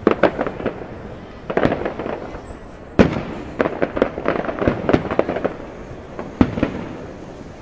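Aerial fireworks going off: clusters of quick crackling pops, with single sharp bangs about three seconds in and again near the end.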